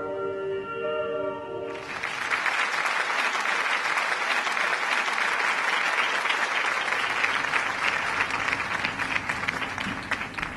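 Held ambient music tones, abruptly overtaken about two seconds in by an audience applauding, a steady clapping that thins out near the end.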